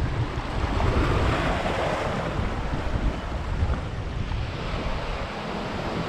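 Sea surf washing against and over a rocky shoreline, with a swell of breaking water about a second in. Wind buffets the microphone with a low rumble throughout.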